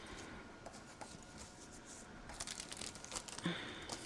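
Faint rustling and crinkling of paper being handled, with scattered light crackles that grow busier in the second half.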